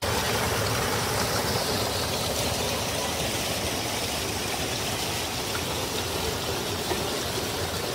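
Water splashing and rushing steadily over a small cascade between boulders in a rocky forest stream.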